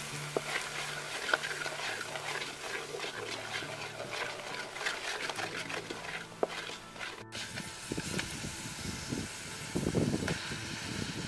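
Thick sauce bubbling and sizzling in a hot iron wok, with many small crackles and pops and a spatula scraping through it. About ten seconds in there is a louder burst of sizzling as raw pork leg pieces go into the wok.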